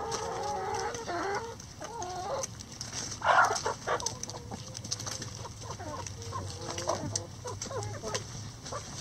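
A flock of backyard chickens clucking: many short calls overlapping throughout, with one louder, rougher call about three seconds in.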